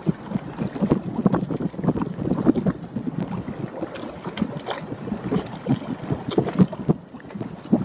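Wind buffeting the microphone in irregular gusts, a choppy low rumble with no steady engine tone.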